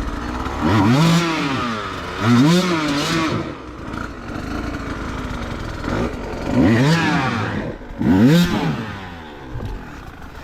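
Enduro dirt bike engine revved hard in four bursts, the pitch climbing and falling back each time: two blips a second or so apart, then two more about six seconds in, with the engine running lower between them.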